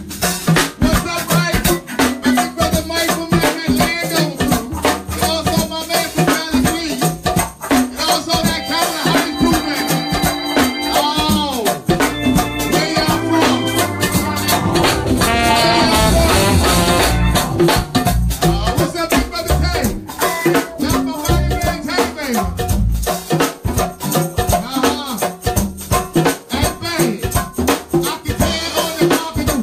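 Go-go band playing live: a dense, steady percussion groove of drums and shakers, with melodic parts running over it.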